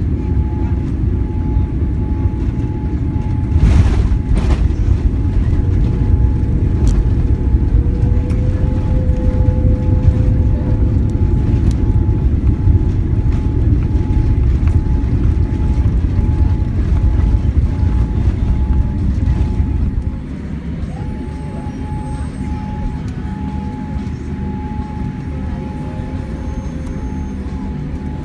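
Boeing 787 cabin noise during landing: two thumps about four seconds in as the main gear touches down, then a loud low rumble through the rollout on a wet runway. The rumble steps down noticeably about twenty seconds in as the aircraft slows.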